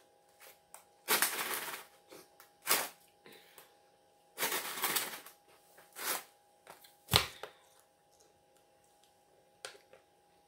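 Thin plastic water bottle crinkling and crackling as it is squeezed and handled: two longer crackles, about a second in and again near the middle, with sharp single pops in between and after.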